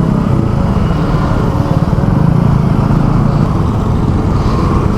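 KTM Duke 200's single-cylinder engine running steadily as the motorcycle is ridden, a continuous low rumble with rapid firing pulses.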